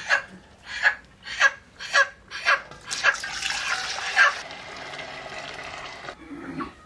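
Water poured from a pot into an empty aluminium basin, a rushing splash from about three seconds in that cuts off just before the end. Before the pour comes a run of short, sharp sounds about twice a second, louder than the water.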